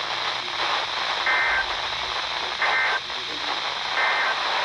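Emergency Alert System end-of-message data bursts: three short two-tone digital chirps about 1.3 seconds apart, heard over radio with steady static hiss beneath them. They signal the end of the alert broadcast.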